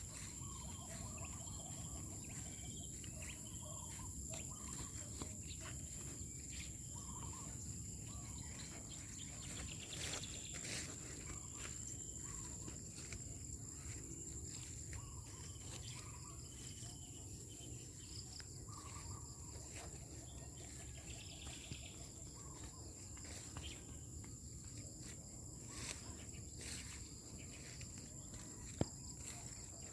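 Steady high-pitched insect drone over low background rumble, with a few faint chirps and clicks.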